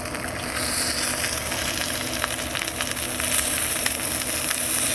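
Tomahawk steak's fat cap searing on smoking-hot oiled cast iron: a steady sizzle with fine crackles as the fat renders down, swelling a little about half a second in.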